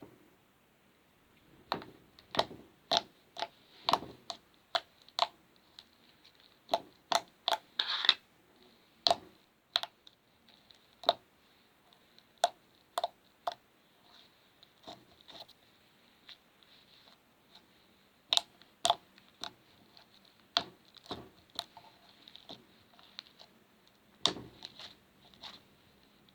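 Homemade slime being squeezed and poked by hand, giving irregular sharp pops and clicks, some in quick clusters.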